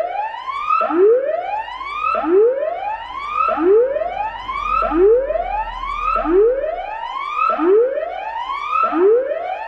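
Electronic tsunami warning siren sounding its warning tone: a loud, fast series of overlapping rising whoops, a little more than one a second.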